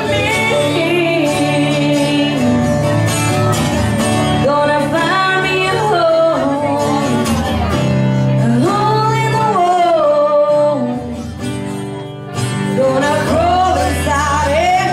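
Live acoustic performance: a woman and a man singing to a strummed acoustic guitar, with a short break in the singing about twelve seconds in.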